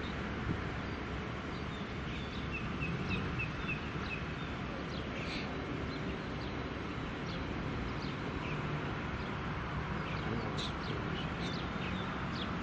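Steady outdoor background noise with birds chirping, including a quick run of about six high chirps a few seconds in.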